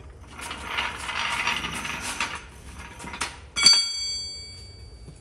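Metal rattling for about two seconds, then a single sharp metallic clang about three and a half seconds in that rings on for over a second.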